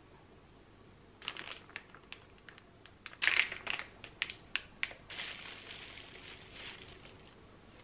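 Plastic food packaging crinkling and crackling as packets are picked up and shown. Scattered crackles come first, then a louder run of sharp crackles a few seconds in, then a softer, steadier rustle of plastic wrap.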